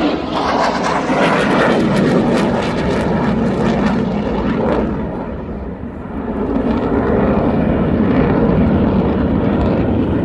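Military aircraft passing low overhead. Loud, steady engine noise that fades a little about six seconds in, then swells again as the aircraft come round.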